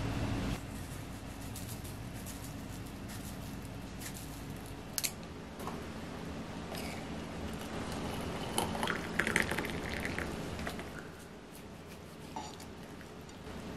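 Water poured into a glass mug over a hibiscus tea bag for a couple of seconds, after a sharp click about five seconds in.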